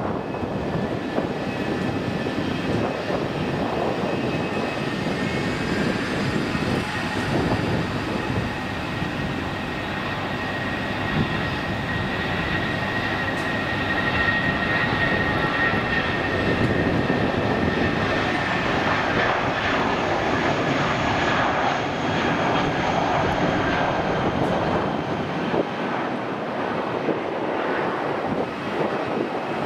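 Airbus A320-232's two IAE V2500 turbofans at takeoff thrust: a steady jet roar with a whining fan tone that is strongest about halfway through, as the airliner passes on its takeoff roll, and carries on as it lifts off near the end.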